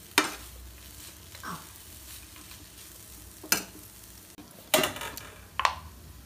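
A spatula stirring grated carrot and beetroot in a nonstick frying pan, with a handful of sharp scrapes and knocks against the pan over a low frying sizzle.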